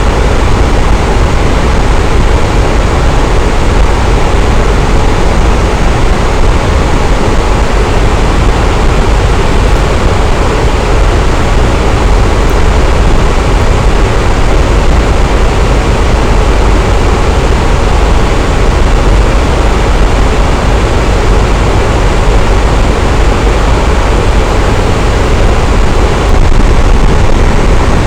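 Electric fan running: a steady, loud whooshing noise, even and unchanging, with a deep low rumble underneath.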